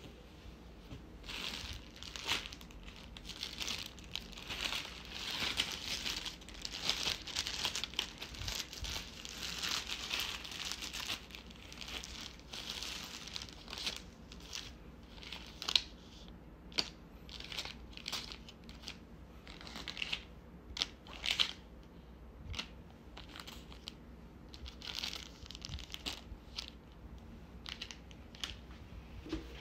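Paper and plastic wrappers of hotel amenity packets crinkling and rustling as they are handled and opened, dense and continuous for the first half, then scattered sharp crackles.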